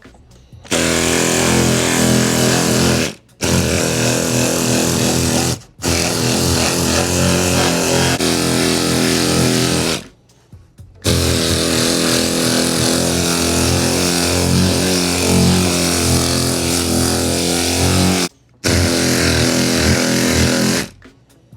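Power sander running against cured body filler on a car fender, switched on and off in runs of a few seconds with four brief stops.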